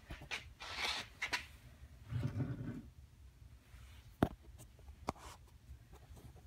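Scattered clicks and rustles of hands handling small parts and wires on a workbench, with a brief low rumble about two seconds in and one sharp click a little past four seconds in.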